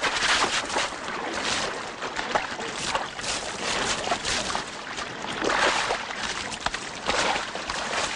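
Water splashing and churning in a stone fountain basin as a man is dunked and struggles in it, with irregular heavier splashes every second or so.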